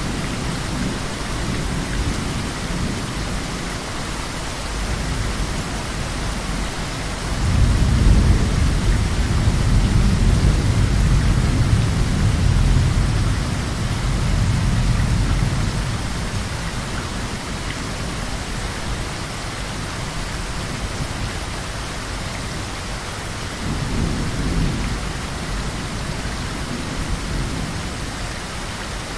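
Heavy steady rain with rolling thunder: a long deep rumble builds about seven seconds in and fades out over the next eight seconds or so, and a shorter, weaker rumble comes near the end.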